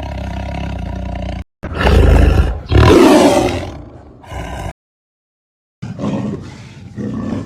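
Tiger roaring: two loud roars about two and three seconds in, then a short silence and a further, quieter rough call.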